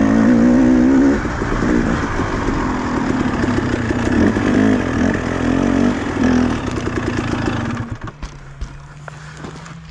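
Two-stroke engine running with its revs rising and falling unevenly, then dropping off about eight seconds in, leaving a lower steady hum and a few clicks.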